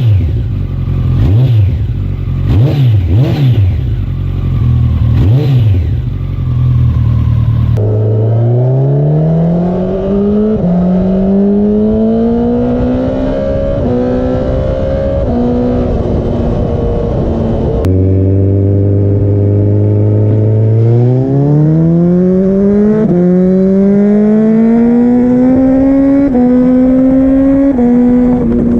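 Kawasaki ZX-14R's inline-four through an aftermarket Akrapovič exhaust, first revved in about four quick blips. It then accelerates hard through the gears twice, the engine note climbing and dipping briefly at each quick-shifter upshift.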